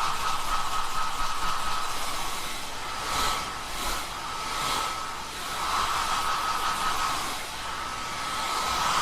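A steady rushing, blower-like noise carrying a thin whistling tone, swelling briefly several times.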